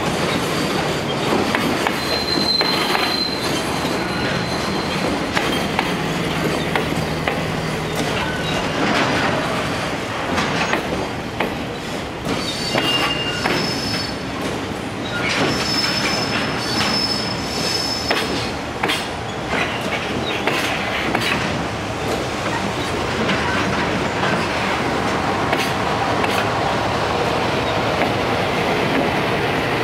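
Freight train of container flat wagons (Koki 104 type) rolling past: a steady rumble of wheels with repeated clatter over the rail joints. Several brief high-pitched wheel squeals come a couple of seconds in and again around the middle.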